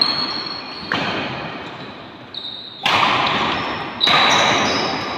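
Badminton rackets striking the shuttlecock in a fast doubles rally, four sharp cracks about a second or two apart, each ringing on in a large echoing hall, with brief high squeaks of shoes on the court between hits.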